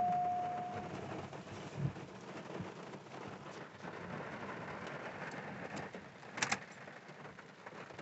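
Steady rain falling in a thunderstorm. A steady high tone stops about a second in, there is a dull thump near two seconds, and a sharp click comes just past six seconds.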